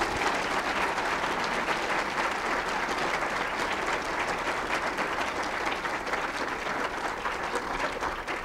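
Audience applauding in a lecture auditorium: steady, dense clapping from a large crowd.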